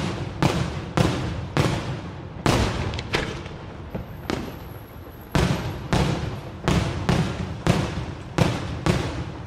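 Daytime aerial fireworks: a rapid string of shell bursts, sharp bangs coming about one or two a second, each fading out with an echo.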